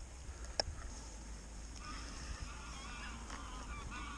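Geese honking, a run of repeated calls starting about two seconds in. A single sharp click comes about half a second in.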